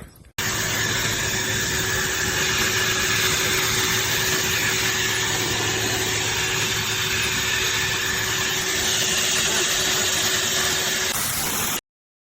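High-velocity pet dryer blower running at full power: a steady rush of air over a constant motor hum. It starts abruptly about half a second in and cuts off suddenly near the end.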